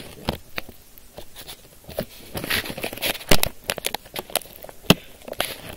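Irregular handling noises: sharp clicks and knocks, with a stretch of crinkling about two to three seconds in.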